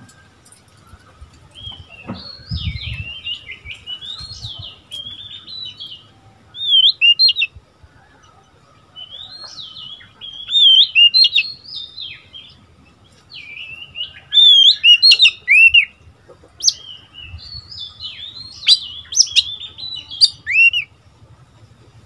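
Oriental magpie-robin, a young male, singing: rapid, varied whistled and warbled phrases in bursts of one to a few seconds, with short pauses between them.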